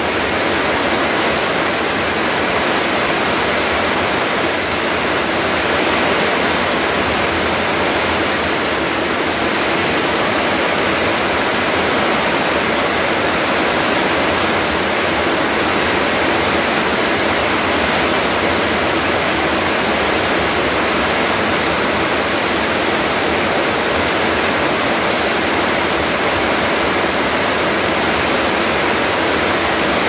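Heavy rain pouring onto leaves and a paved yard, a dense, even hiss that holds steady without a break.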